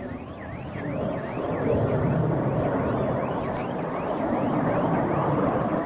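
Emergency vehicle siren on a fast yelp, its pitch sweeping up and down about three times a second, over a loud rushing rumble that swells about a second and a half in.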